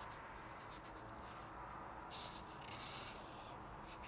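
Marker pen rubbing on sketchbook paper as a small shape is coloured in. The strokes are faint and come in short spells, about a second in and again from about two to three and a half seconds.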